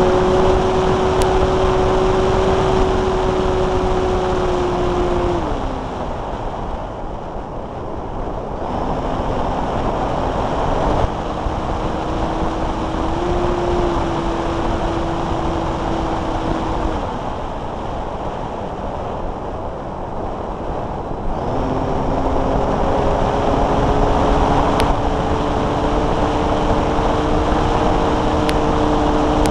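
Multiplex Blizzard RC model's electric motor and propeller buzzing steadily over rushing airflow, recorded on board. The motor cuts back twice, leaving only wind noise for a few seconds, and each time powers up again, the second time with a slowly rising pitch.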